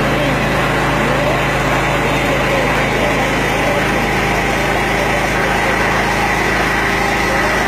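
A small engine running steadily: an even, unchanging drone.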